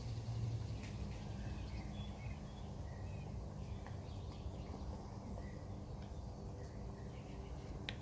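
Steady outdoor background noise with faint, scattered bird chirps; a low hum fades out within the first second.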